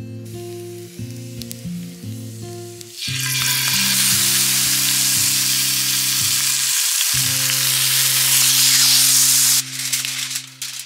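Steak laid into a hot oiled cast-iron skillet and sizzling loudly, starting about three seconds in and cutting off abruptly near the end. Soft background music with steady sustained notes plays underneath.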